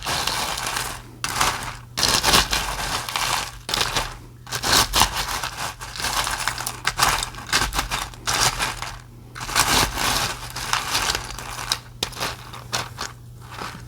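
A bowl of ice being stirred and mixed, its pieces clattering, grinding and crunching against each other in repeated bursts with short pauses.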